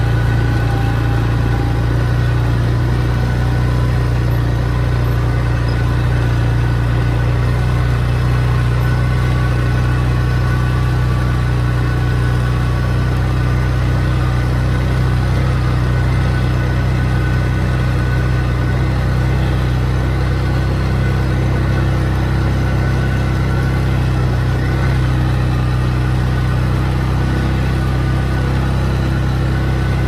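ATV engine running steadily as the quad is ridden at a slow, even pace along a dirt trail.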